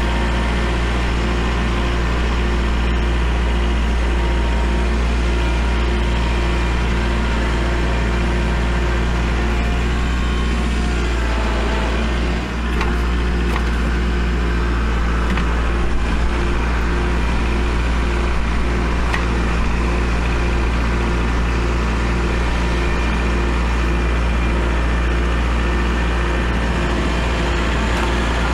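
Kubota L4701 compact tractor's diesel engine running steadily under load while it pushes snow, a constant low drone.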